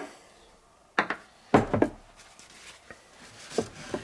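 A few knocks and clinks of metal cans handled and set down on a wooden workbench, a tin of fiberglass resin and the cut-off bottom of a drink can. The loudest, a double thud, comes about a second and a half in.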